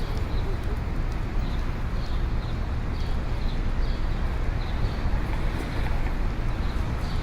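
Steady city street ambience: a continuous low rumble of traffic, with a faint high tick repeating about twice a second.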